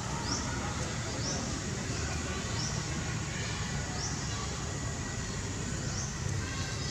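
Outdoor ambience: a steady low rumble and hiss, with a short, high chirp repeating every second or two.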